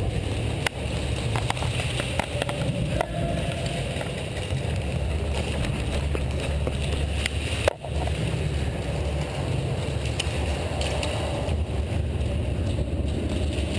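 Steady low rumble of a player's footsteps and gear on the move, picked up by a helmet-mounted microphone, with a few sharp clicks scattered through; the loudest is about halfway.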